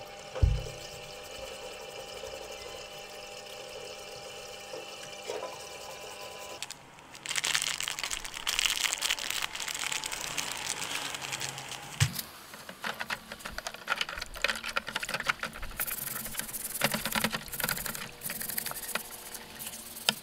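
A parts-washer pump hums steadily while fluid runs through a flow-through brush scrubbing a greasy metal gear housing. About seven seconds in, this gives way to water pouring loudly into a tub of parts, then a plastic brush scrubbing the drill's motor housing under water in quick scratchy strokes.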